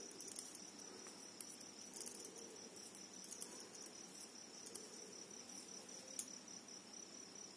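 Faint, irregular light clicks of knitting needles tapping together as plain knit stitches are worked in wool. A steady high-pitched whine runs underneath.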